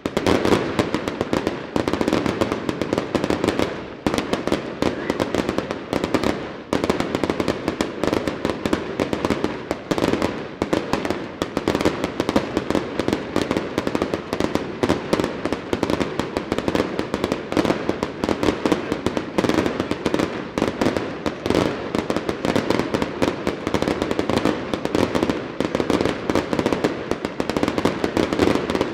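Aerial fireworks going off in a dense, rapid barrage: many bangs and bursts overlapping with no gaps, a fast continuous volley of reports.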